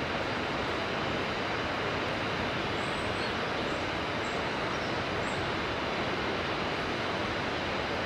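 Steady rush of a mountain river flowing, with a few short, faint high bird chirps about three to five seconds in.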